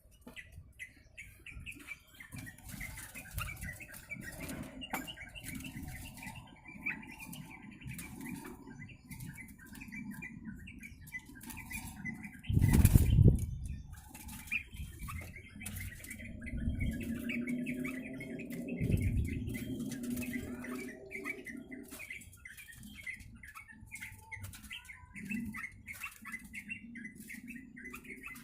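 A caged yellow-vented bulbul (trucuk) fluttering and flapping its wings against the cage, with short chirps throughout. There is a loud knock about 13 seconds in.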